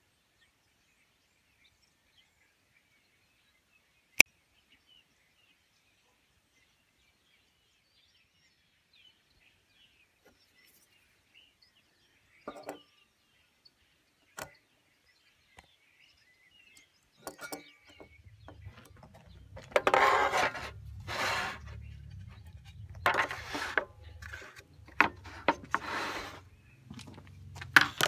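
Faint birdsong with a sharp click a few seconds in. In the last third a low hum comes in, with repeated scraping and knocking as a pallet board and a clamp are handled on the table saw's top.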